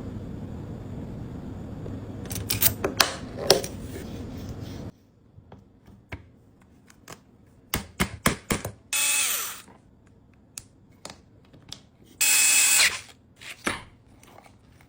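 A small power drill runs in two short bursts of under a second each, one about nine seconds in and one about twelve seconds in. Sharp clicks and taps of small hard parts being handled come in between.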